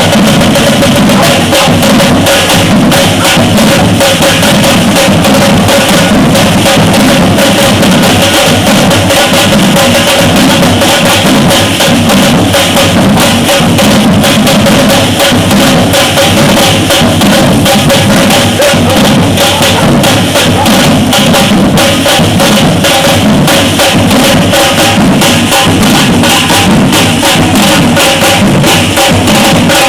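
Batucada drum ensemble playing a fast, dense, unbroken groove, with bass drums, snare drums and other percussion struck together at loud, steady volume.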